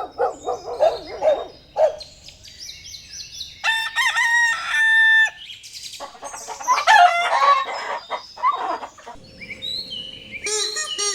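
A run of chicken sounds: quick repeated clucks, high chirps, then a long rooster crow about four seconds in, followed by more squawks and chirps.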